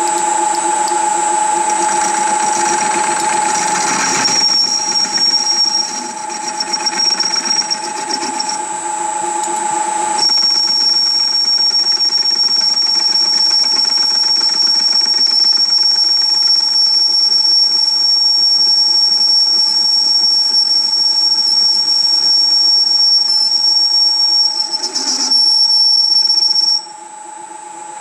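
Metal lathe running and turning a rusted steel part while the cutting tool takes a pass to remove the rust, with a steady hum and a high whine from the cut. The whine stops abruptly about a second before the end and the sound drops.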